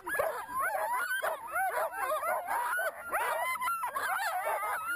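A chorus of many sled dogs barking and yipping at once, short high calls overlapping without a break.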